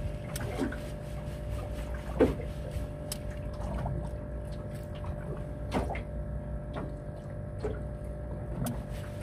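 Water lapping and slapping against a small aluminium boat hull over a steady low hum, with a few short sharp knocks.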